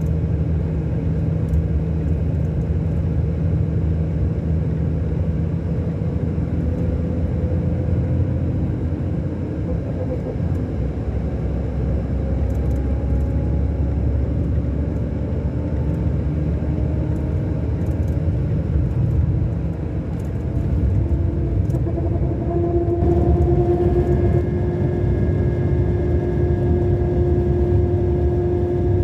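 Scania K-400 Euro 5 bus engine running under way with a steady low rumble. Its tones rise slowly in pitch as the coach gains speed, with a shift and a louder whine about three-quarters of the way through.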